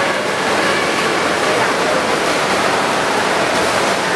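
Steady rushing din of an indoor competition pool during a freestyle race, made mostly by swimmers splashing through the water.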